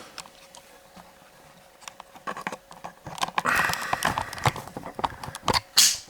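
Small plastic wiring connectors being handled: a run of light clicks and rattles starting about two seconds in, with one sharper click near the end.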